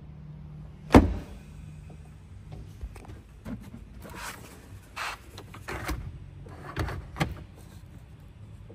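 Cargo-area trim of a Mercedes E-Class wagon being handled. The cargo floor panel shuts with a sharp thump about a second in, then a series of plastic clicks and rattles follows. A faint low hum runs under the first two seconds.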